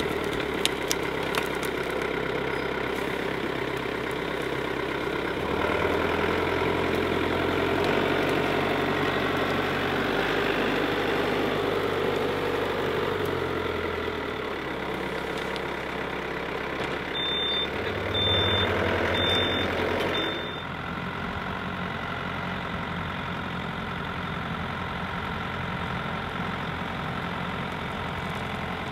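Yanmar compact tractor's diesel engine running while the front-loader grapple handles brush, its note rising and easing with the load and dropping back a little past two-thirds of the way through. Four short high beeps sound just before the engine eases off, with a few light clacks near the start.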